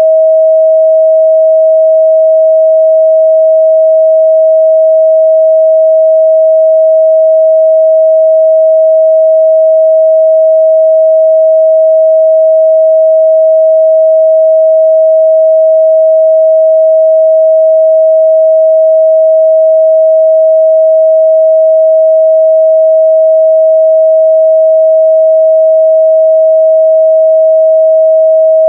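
A steady 638 Hz sine-wave test tone, one unbroken pure pitch held at a constant loud level, used for checking speaker and headphone response.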